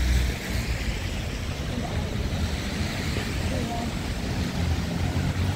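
Outdoor city street ambience: a steady low rumble and hiss, with faint voices of passers-by.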